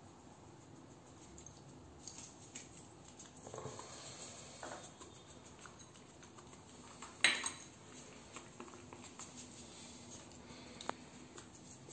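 Porcelain cup and saucer handled on a tiled floor while milk is poured into the saucer: soft scrapes and splashes, then one sharp clink of china on tile a little past halfway, and a faint tick near the end.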